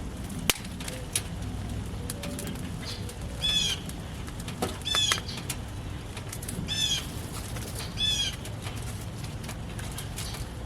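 A bird calling four times, each a short arching high call, about one to two seconds apart, over a steady background of rain with scattered drips.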